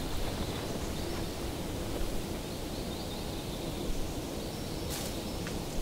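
Steady outdoor forest ambience: a constant hiss of background noise with a faint high insect hum, and a few short dry rustling clicks near the end.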